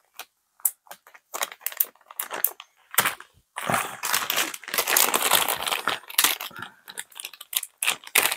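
Thin clear plastic bag crinkling as hands rummage in it for small pieces: scattered short crackles at first, then continuous crinkling from about three and a half seconds in.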